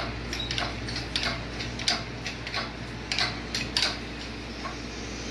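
Irregular light metallic clicks and clinks, a few a second, from metal parts being handled during engine removal, over a steady low hum.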